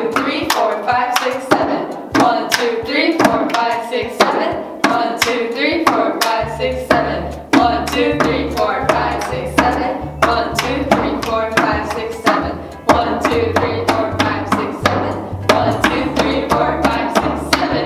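Hands clapping and slapping in a two-player hand-clapping game, about two strokes a second, over background music; a bass line comes into the music about six seconds in.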